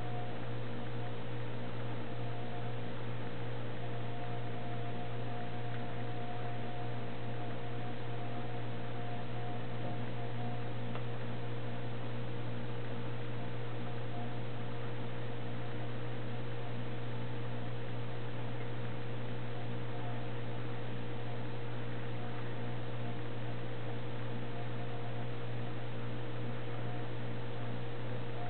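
Steady electrical hum with a faint hiss, unchanging throughout; a thin higher tone above it comes and goes.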